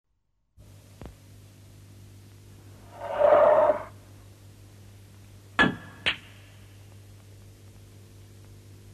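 A low steady hum, a brief rushing noise about three seconds in, then two sharp ringing clinks about half a second apart.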